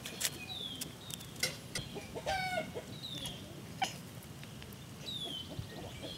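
Chickens clucking, mixed with the sharp clicking chatter of a Maine Coon cat watching them as prey, and three short high falling chirps.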